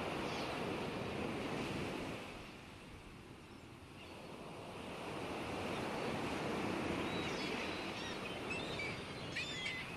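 Ocean surf: waves washing in and drawing back, the rushing swelling, fading, then swelling again, with a few faint high chirps near the end.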